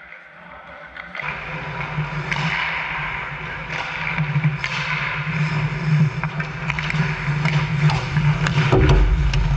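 Ice hockey play on a rink: skate blades scraping the ice, with scattered sharp clacks of sticks and puck over a steady low hum, which grows heavier near the end.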